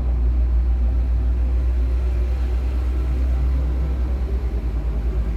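A steady, loud low hum with a fluttering rumble in it.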